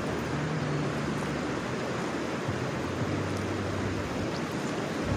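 Steady rushing outdoor background noise, with a low hum that fades in and out a few times.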